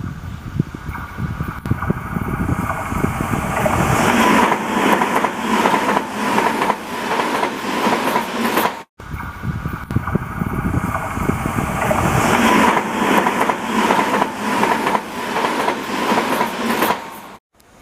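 TOMIX N-gauge model of a Tobu 100 series Spacia running on the layout track: fast clicking of the wheels over the rail joints with a steady motor whine, growing louder over a few seconds as the train comes near. It breaks off sharply about halfway through, and the same passing is heard again.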